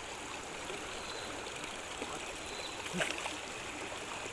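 Fast-flowing river water rushing steadily, with one faint knock about three seconds in.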